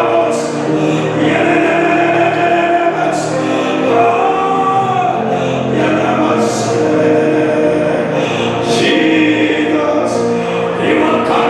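Group singing of a slow gospel worship song, voices holding long notes with music underneath.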